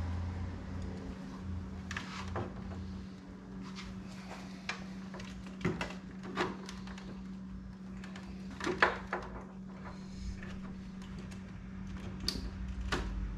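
Scattered clicks and light knocks from handling the table saw's housing and parts during a switch swap, the loudest about nine seconds in, over a steady low hum.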